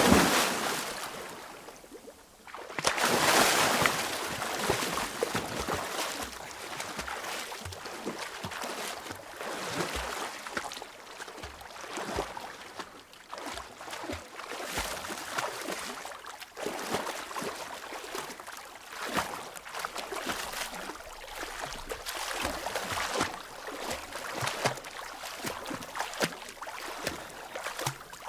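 Water splashing from a jump into water. A heavy splash is fading at the start, a second big splash comes about three seconds in, and then the water keeps sloshing with many small splashes.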